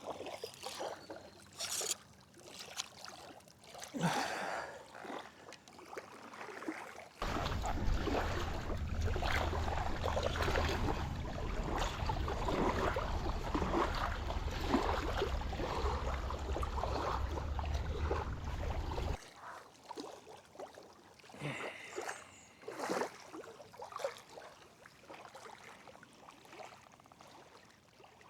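Outdoor ambience at a lakeshore with light ticks and trickles. About seven seconds in, a strong gust of wind buffets the microphone with a deep rumble and hiss, then cuts off suddenly some twelve seconds later.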